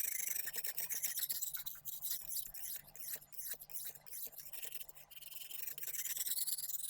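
Oiled Lansky sharpening hone rubbed back and forth along a kitchen knife's edge in quick, scratchy strokes, working to raise a burr at a 25-degree guided angle.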